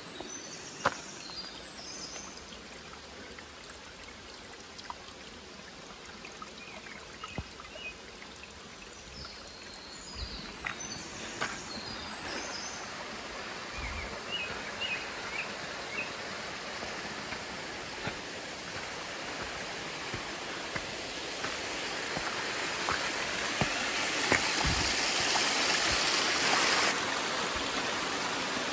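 Mountain valley stream running over rocks, growing louder near the end, with scattered footsteps on stone and gravel and a few short bird chirps.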